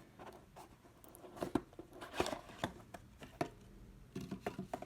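Trading cards and their packaging being handled: a scattering of soft taps, clicks and rustles, with a quick run of small ticks near the end.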